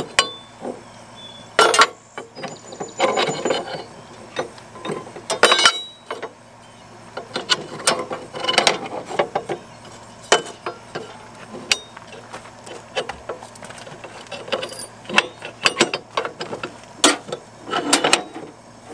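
Ratchet wrench clicking in irregular bursts, with clinks and knocks of metal, as bolts are turned to mount a tractor seat.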